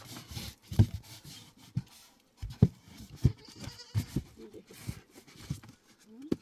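Irregular knocks and thumps from white foam cool boxes being handled, lids lifted and set down, about ten dull hits in all. A goat bleats in the background.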